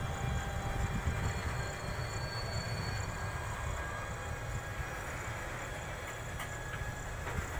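Indian Railways WAG12 twin-section electric freight locomotive pulling a freight train slowly past: a steady low rumble of the moving train, with a couple of faint clicks near the end.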